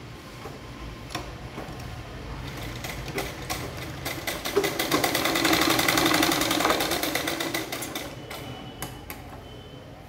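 Sewing machine stitching a shirt cuff: it speeds up from about two seconds in, runs at a fast, even stitching rhythm through the middle, then slows and stops about eight seconds in.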